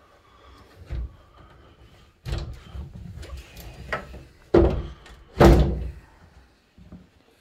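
A closet door being handled: a run of knocks and thumps, the two loudest about a second apart a little past the middle.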